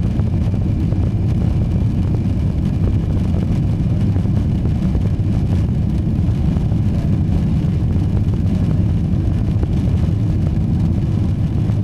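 Jet airliner engine and airflow noise heard from inside the cabin during the climb just after takeoff: a steady, loud low rumble.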